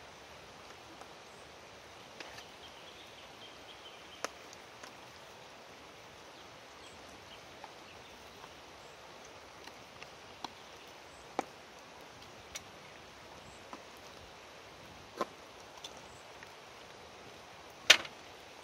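Scattered light clicks and taps from hands handling a stock carton and a tablespoon, the sharpest one near the end, over a steady background hiss.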